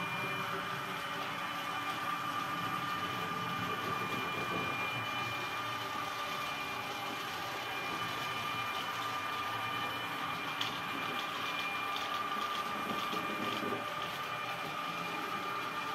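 Model train running along the layout track: a steady electric whine over the even rumble of its wheels on the rails, with a few faint clicks near the end.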